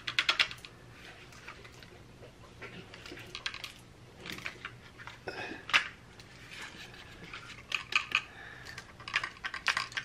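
Clusters of small, hard clicks and rattles come several times as a DJI Mavic Pro drone is tilted and handled over a box of uncooked rice: loose rice grains rattling against the drone's plastic body. The owner takes some of the rattle for rice grains that have got inside the drone.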